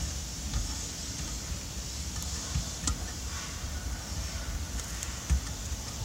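A few faint clicks and scrapes of pliers gripping and turning a stuck screw, over a steady low rumble.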